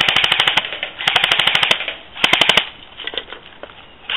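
Airsoft M14 rifle firing on full auto: three rapid rattling bursts of about fourteen shots a second. The first stops about half a second in, the second runs just under a second, and the last is short.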